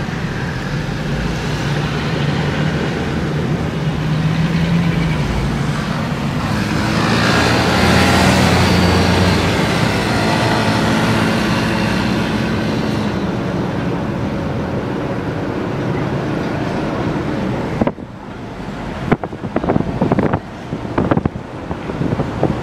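Car driving through city traffic, heard from inside the cabin: steady engine rumble and road noise, louder for a few seconds about a third of the way in. Near the end the sound changes abruptly to uneven gusts of wind buffeting the microphone.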